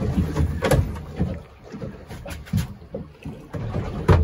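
Water slapping irregularly against the hull of a small fishing boat, with a couple of sharp knocks, the loudest near the end.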